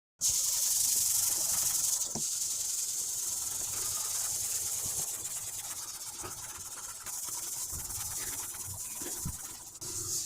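Aerosol can spraying with a long steady hiss that is broken briefly about two seconds in and again around seven seconds, with a few light knocks.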